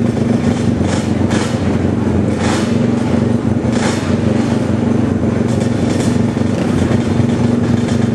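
Quad (ATV) engines running at a steady, unchanging pitch, with a few short rushes of hissy noise over the top.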